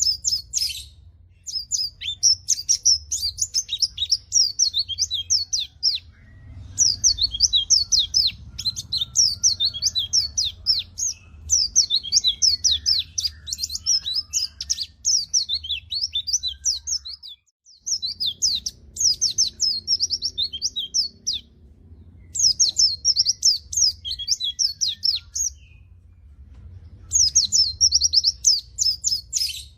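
White-eye (pleci) in full song: rapid, high-pitched chattering runs of notes, delivered in phrases of a few seconds each with brief pauses between.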